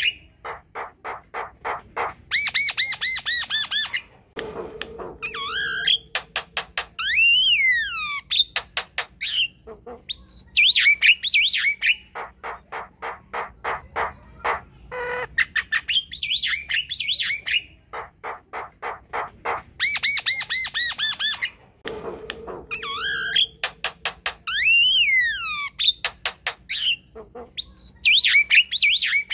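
Javan myna singing: rapid runs of clicking chatter mixed with harsh squawking calls and whistled notes that rise and fall. The same run of phrases comes round again about two thirds of the way through.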